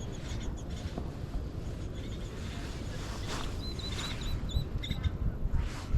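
Outdoor ambience by a pond: a steady low wind rumble on the microphone, with a faint run of small bird chirps about three seconds in.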